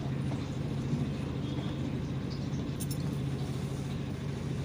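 Steady low hum of a running motor, with a faint rustle of cloth about three seconds in as fabric pieces are handled.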